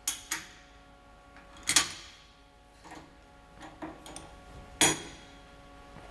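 Sharp metal clanks and knocks as aluminum stock and a machine vise are handled, two louder ones about three seconds apart and a few lighter taps, over a steady machine hum.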